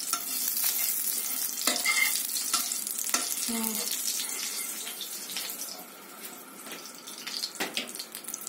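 Hot oil sizzling in a frying pan, with a few sharp clicks of a metal spatula against the pan and plate. The sizzle dies down after about five seconds.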